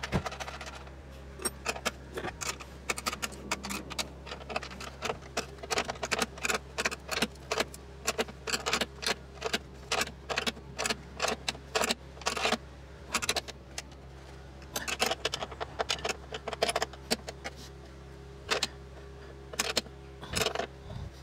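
A metal spanner clicking and clinking against bolts and the bracket at a car's bonnet hinge, in quick irregular clusters of sharp clicks, over a steady low hum.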